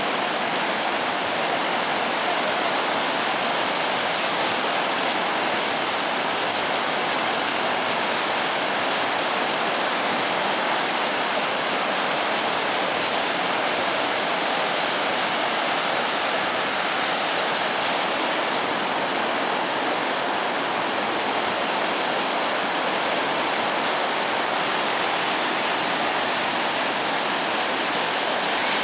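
Floodwater rushing and churning through the breach in a collapsed river crossing: a steady, unbroken sound of fast-flowing water.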